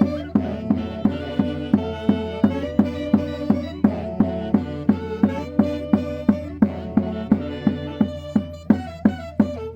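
Live Andean caña y quinto folk music from the Huancayo region: a held, wavering melody over a steady drum beat of about three strokes a second.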